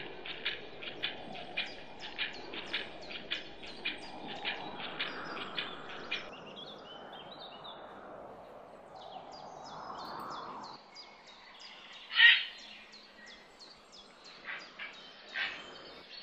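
Outdoor soundscape of animal calls: a short chirping call repeats about twice a second over a soft background. The background changes and drops about eleven seconds in, and a single louder call follows a moment later before the chirping resumes.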